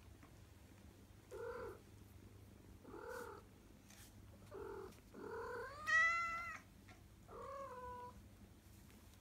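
Ragdoll kitten mewing: about five short, high calls a second or two apart, the fourth longer, rising in pitch and the loudest.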